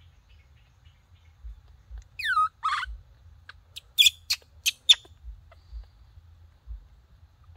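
High-pitched animal calls: a cry that falls sharply in pitch about two seconds in, followed by a rougher call, then a quick run of about five short, sharp chirps a second or so later.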